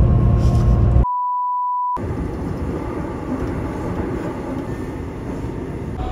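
The steady low rumble of a bus in motion is cut off about a second in by a single-pitch edited-in bleep, nearly a second long, that replaces all other sound. After it comes the steady running noise of a subway train car.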